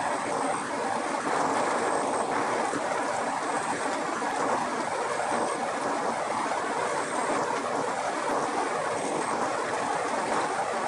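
Kadıoğlu Nutmec 180E walnut peeling machine running loaded with green walnuts: a steady, dense rattle of the nuts churning in its peeling drum as the husks are stripped off.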